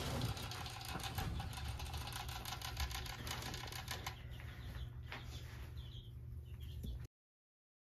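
Rabbit licking the metal sipper tube of a hanging water bottle: a rapid run of small clicks over a low steady hum, cutting off suddenly about seven seconds in.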